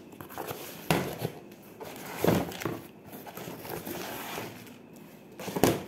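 A cardboard box being cut open with scissors along its taped seam and handled, with irregular scraping and rustling of the packaging and a few louder knocks and scrapes, one about a second in, one just past two seconds and one near the end.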